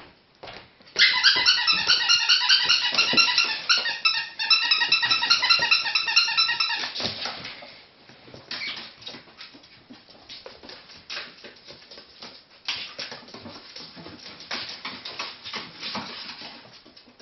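Ferret squeaking in a long rapid run of high-pitched squeals during rough play, stopping after about six seconds. It is followed by light scrabbling and tapping on a wooden floor and cardboard.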